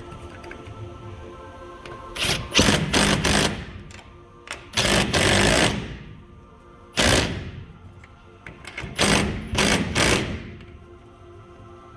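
A power tool run in short bursts, four spells of a few seconds each that wind down after release, over steady background music.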